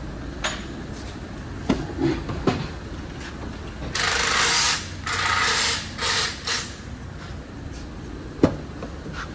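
Handling sounds at a pickup truck's rear door: a few sharp clicks about two seconds in, then several short bursts of rushing, hissing noise, and one sharp knock near the end.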